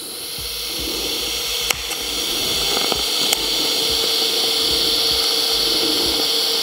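TIG welding arc from a Pico 160 cel puls inverter, struck by lift-arc ignition to set a tack weld on a steel frame corner. It is a steady hiss with a faint steady tone underneath and a few sharp crackles, growing a little louder over the first second.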